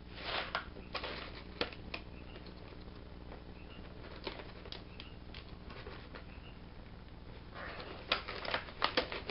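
Rigid clear plastic blister tray crackling and clicking as it is handled. There are a few crackles in the first two seconds, a quieter stretch, then a quick run of them near the end.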